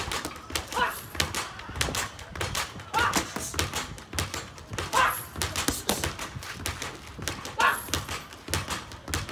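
Boxing gloves striking focus mitts in quick runs of sharp slaps, with short vocal sounds about every two seconds.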